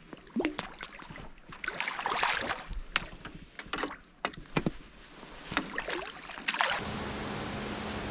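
Water splashing and sloshing in irregular bursts, a run of short splashy slaps and gurgles. About seven seconds in it gives way to a steady hiss with a faint low hum.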